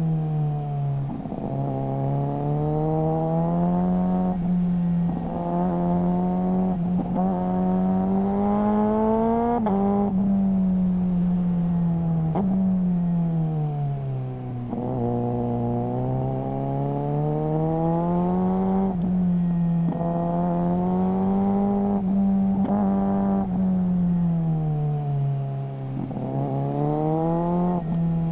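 Suzuki GSR600's inline-four through a GPR Ghost exhaust, ridden hard: the engine note climbs in pitch and drops sharply at several quick gear changes, with stretches where it falls away as the bike slows before pulling again.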